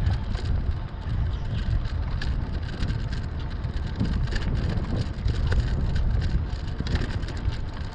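Riding noise from a Lectric XP fat-tire e-bike: tire rumble on the path and wind buffeting the microphone, with scattered small clicks and rattles.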